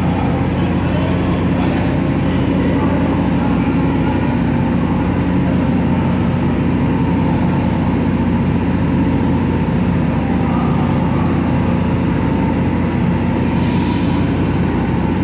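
Steady, loud low drone of trains standing in a subway station: a rail grinder idling on the next track and an R46 subway car waiting at the platform. A short hiss comes about fourteen seconds in.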